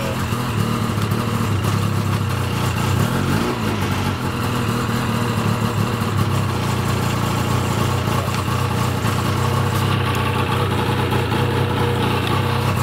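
2006 Ski-Doo snowmobile's liquid-cooled two-stroke engine idling steadily inside an enclosed trailer.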